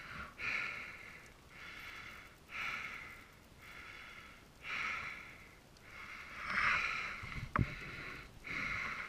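A dirt-bike rider breathing heavily, hard in-and-out breaths about one a second, with one sharp knock about three-quarters of the way through.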